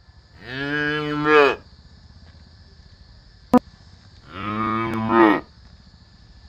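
Water buffalo mooing: two long, low calls about three seconds apart, each lasting about a second and swelling louder at its end. A single sharp click falls between them.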